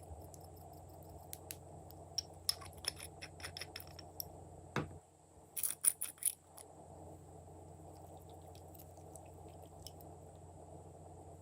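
Glossy slime being squished and stretched by hand, giving irregular sticky clicks and pops, with a cluster of loud pops about six seconds in. A steady low hum runs underneath.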